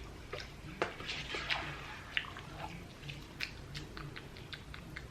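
A person eating spicy Korean instant noodles close to the microphone: wet chewing with many short mouth clicks and smacks, and a wetter stretch about a second in.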